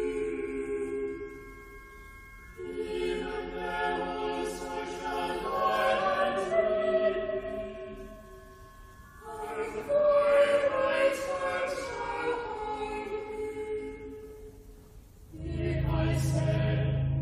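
Choir singing in slow chant-like phrases, with short pauses between them. About fifteen seconds in, a new phrase begins over a steady low held note.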